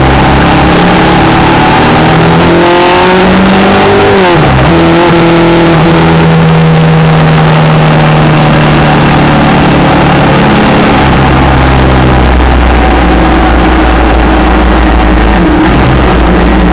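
Onboard sound of a Suzuki V-Strom's V-twin engine under way, with heavy wind noise on the microphone. About three seconds in, the revs climb and then drop sharply at a gear change, and after that the engine runs at a steady pitch.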